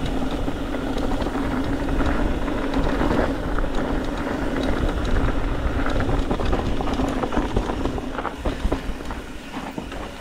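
Mountain bike rolling down a loose dirt and gravel trail: a steady rumble of tyres and a constant rattle of the bike over the rough surface, mixed with wind on the camera's microphone. It grows quieter near the end as the bike slows.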